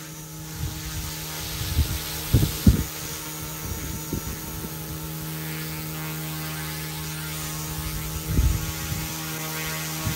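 FlyWing FW200 micro RC helicopter hovering, its direct-drive motor and spinning rotor blades making a steady low hum. A few brief low thumps come through, about two and a half seconds in and again near eight seconds.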